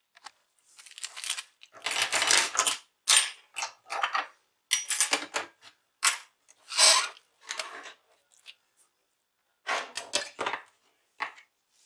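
A hand tool scraping in a run of short, irregular strokes on the plastic laptop display casing, with a brief pause before a last few strokes near the end.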